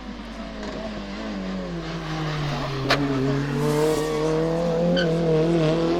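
Hillclimb race car engine running under load and getting louder as it approaches. Its pitch drops over the first two seconds, then holds steady and edges up, with a single sharp crack about three seconds in.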